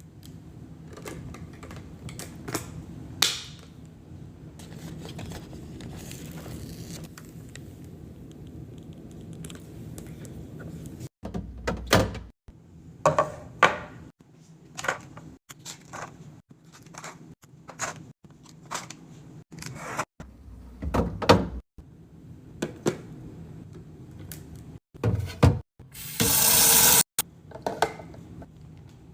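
Restocking handling sounds: containers and packages set down and arranged with repeated knocks, thunks and clicks, broken by abrupt cuts between short clips. Near the end comes about a second of loud, steady hiss.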